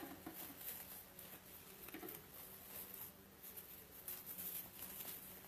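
Faint, irregular rustling and soft ticks of ribbon being wrapped and pulled tight around a metal wire wreath form.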